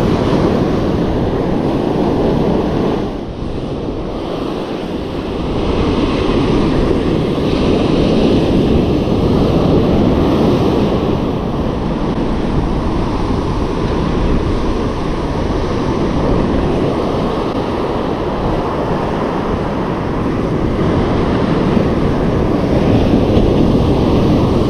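Ocean surf breaking and washing up on a sandy beach, a steady rush of water, with wind blowing across the microphone.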